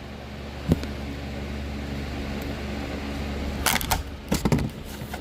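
Handling noise close to the microphone: a single sharp click about a second in, then a short cluster of crackling clicks near the end, over a steady low hum.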